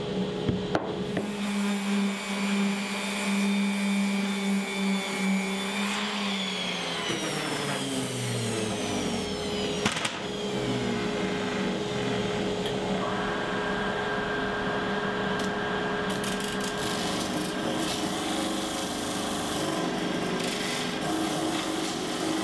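Woodshop power-tool motors running steadily, with one motor winding down in pitch from about six to ten seconds in and another steady machine tone starting at about thirteen seconds.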